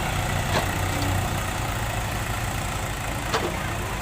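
Heavy diesel engine of earthmoving machinery running steadily at a low idle-like rumble, with two sharp knocks, one about half a second in and one near the end.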